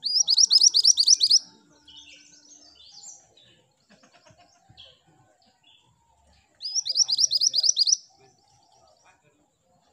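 Minivet singing: two loud runs of quick, high repeated notes, about six a second, one right at the start and one about seven seconds in, with softer scattered chirps between.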